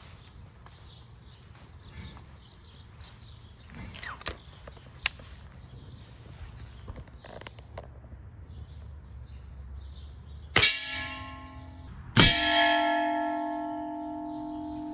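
Two air-rifle pellet hits on metal cookware, about a second and a half apart. Each strike sets the metal ringing like a bell with several clear tones; the second hit is louder and rings for about three seconds.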